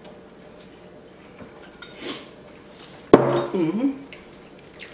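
Tableware at a meal: a sharp clink of a dish or utensil about three seconds in, followed by a short hum that glides up and down, with a soft rustle a second before.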